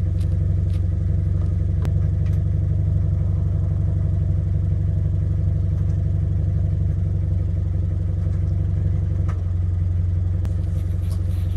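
Subaru BRZ's flat-four boxer engine idling steadily, heard from low behind the car.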